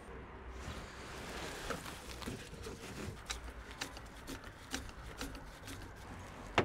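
Scattered light clicks and knocks of hand work on a car's air intake: a screwdriver and intake parts being handled as the old filter is swapped for a cone air filter, with a sharper knock near the end.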